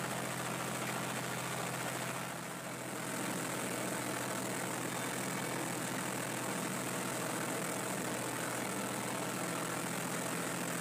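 Farm tractor's diesel engine running steadily under load while it pulls a rotary mower cutting tall moha (foxtail millet), with a slight dip in level about two seconds in.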